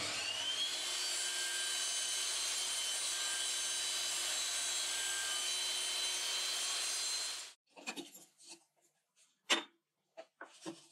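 Table saw spinning up with a rising whine, then running steadily while cutting a thin wooden dowel. It cuts off abruptly about seven and a half seconds in, followed by several short light knocks of wood on a workbench.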